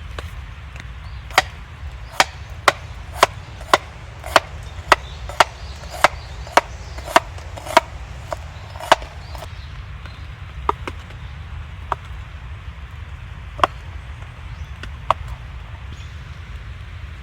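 Knife chopping ingredients on a cutting board: about fourteen even strokes at roughly two a second, then a few slower, scattered strokes.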